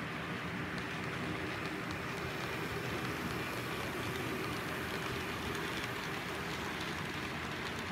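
Model train of BNSF diesel locomotives and freight cars running past close by: a steady rolling rattle of small wheels on track with a faint motor hum.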